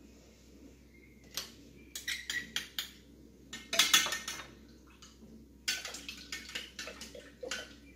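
Clinks and knocks against a Thermomix's stainless steel mixing bowl, coming in several short clusters, as frozen yeast pieces are put in by hand.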